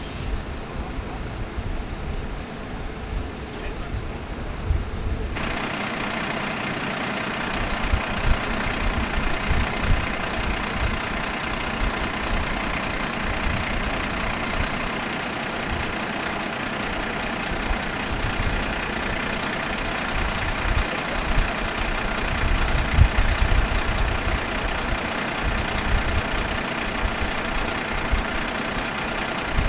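Aircraft refuelling truck's engine and fuel pump running steadily while fuelling a jet, with an uneven low rumble. About five seconds in, the sound suddenly turns brighter, with a steady whine added.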